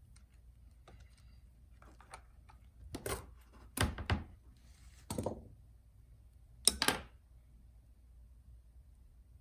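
Short knocks and clicks of handling on a workbench, in four brief clusters about a second apart, the last the sharpest. They come from tools and the laptop being moved during a MacBook battery removal.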